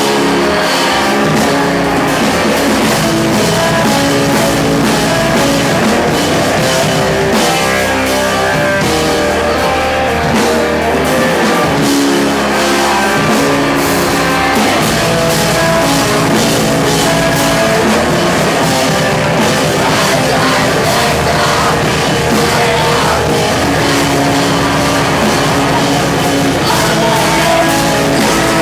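Live post-hardcore band playing loud: electric guitars, bass and a drum kit with crashing cymbals, heard from among the audience.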